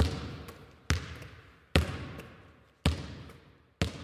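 A basketball being dribbled slowly on a hard court, five bounces about a second apart, each hit echoing in a large hall.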